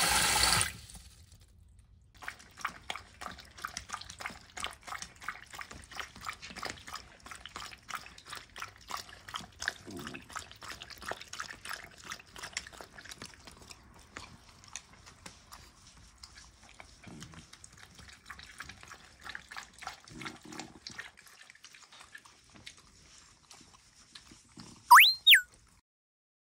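Tap water running briefly into a plastic dog bowl, then poodles lapping water from the bowl: a long run of quick, wet clicks that stops about twenty seconds in. Near the end, a short, loud whistle-like tone rises and then falls.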